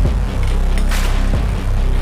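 Electronic background music with a heavy sustained bass, deep falling kick-drum hits and a sharp snare-like hit about a second in.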